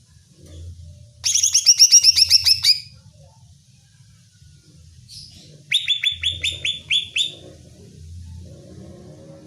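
Cucak ijo (green leafbird) calling in two fast runs of sharp, high, down-slurred notes, one about a second in and another past the middle, each lasting about a second and a half. A faint low hum runs underneath.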